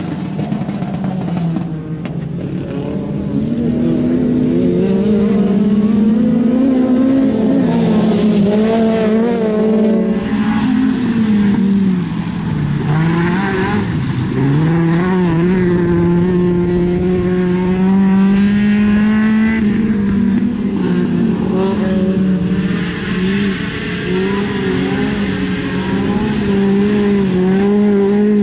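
Autocross race car engines revving hard on a dirt track. The engine note climbs and drops over and over with throttle and gear changes, dipping sharply twice around the middle.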